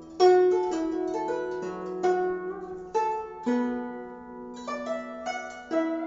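Guzheng played solo: single plucked notes, each with a sharp attack that rings and fades, with a quicker run of notes in the second half.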